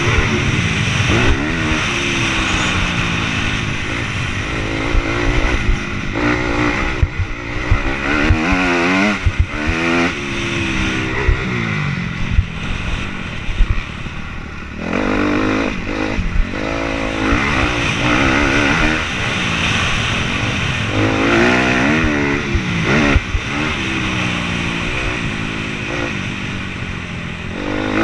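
Dirt bike engine revving up and falling back over and over as the rider accelerates, shifts and rolls off the throttle, heard from a helmet-mounted camera. Short lulls come where the throttle is eased, about 7 s and 13–15 s in.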